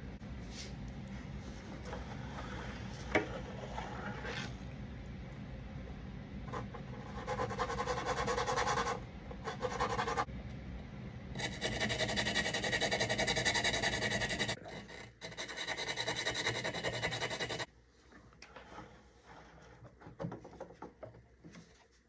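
An RC model airplane's elevator being pushed and worked into its slot on the fuselage, in several bursts of rubbing and scraping that stop about eighteen seconds in, followed by a few faint clicks. A low steady hum runs underneath for most of it.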